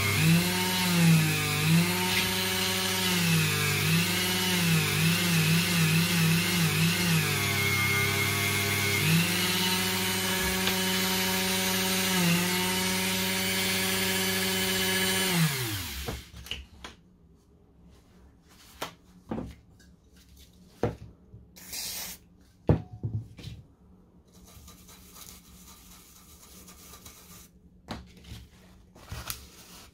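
Flexible-shaft rotary tool running with a small abrasive wheel, its motor whine dipping in pitch again and again as the wheel is pressed onto the brass plaque's raised letters to sand them back to bare metal. About halfway through the motor winds down and stops, leaving a few small knocks and handling sounds.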